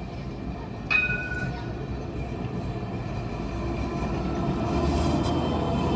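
Alstom Citadis X05 tram running on its rails, a steady rumble that grows louder as it comes closer. A brief, sharp high-pitched sound cuts in about a second in.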